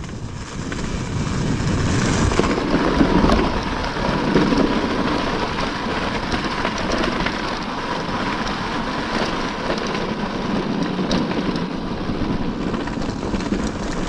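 Off-road motorcycle riding over a rough dirt track: a steady rush of wind and road noise on the microphone, with the engine running underneath.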